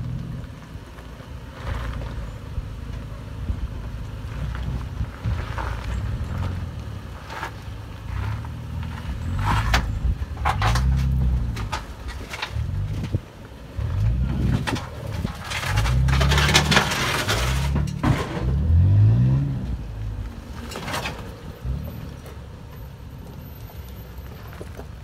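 A 5th-gen Toyota 4Runner's engine revving up and down in short pulls as it crawls down a rock ledge, with scrapes and crunches of tyres on rock. The engine and grinding are loudest a little past the middle, then die down near the end.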